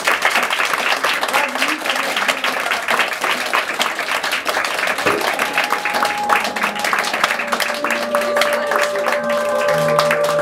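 Audience applauding steadily. In the last few seconds, a few long held instrument notes begin under the clapping.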